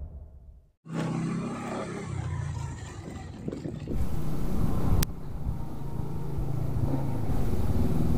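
Intro music fades out. Then a motor scooter's engine runs and draws nearer, growing louder toward the end. A single sharp click comes about five seconds in.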